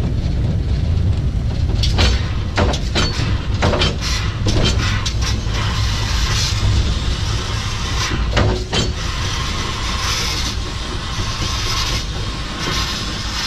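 Steady low rumble and mechanical clatter on the footplate of the Ffestiniog Railway's narrow-gauge steam locomotive Blanche, with a quick run of sharp clicks and knocks from about two seconds in until about nine seconds in.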